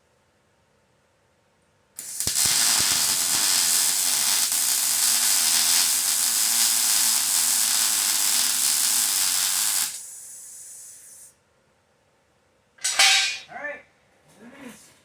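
Welding arc crackling and hissing steadily for about eight seconds as a weld bead is run, stopping abruptly, with a quieter hiss lingering for about a second after. A few short, loud sounds follow near the end.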